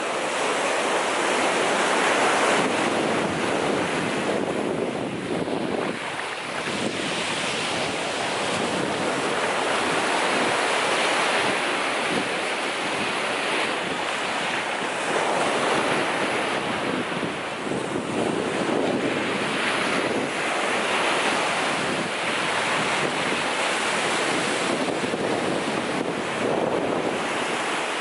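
Ocean surf breaking and washing up the shore, a steady rush that swells and eases, with wind buffeting the microphone.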